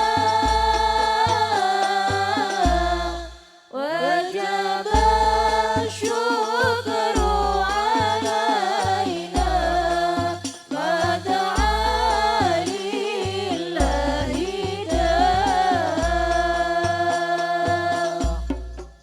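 Islamic devotional song (sholawat): singing over a steady, regular deep bass beat. The music briefly drops out about three and a half seconds in.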